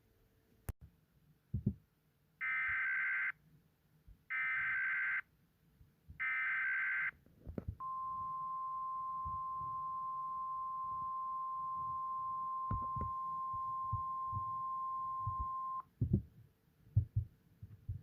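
Emergency Alert System header: three one-second bursts of SAME data warble, then a single steady alert tone near 1 kHz held for about eight seconds, the National Weather Service warning alarm tone that announces a warning. A few short low thumps come just before the bursts and just after the tone ends.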